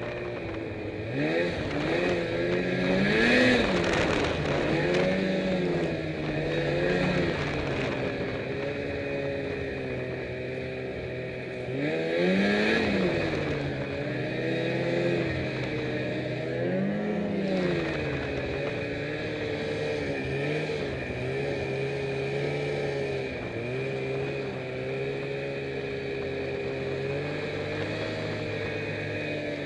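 Snowmobile engine running under way through snow, its pitch climbing and dropping again and again as the throttle is opened and eased off. The biggest surges come a few seconds in and about twelve seconds in, with steadier running between.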